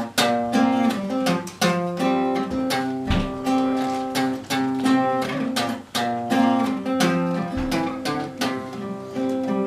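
Acoustic guitar playing a picked song intro, a steady run of plucked notes and chords.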